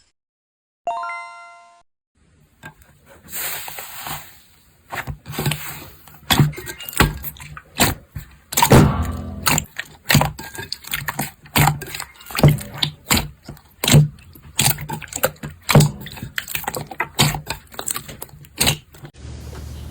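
Slime being pressed and squeezed by hand: a dense, irregular run of sharp sticky clicks and pops, several a second. A short bright chime sounds about a second in.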